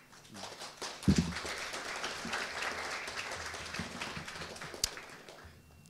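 Audience applauding, building up over the first second and fading out near the end, with a single thump about a second in.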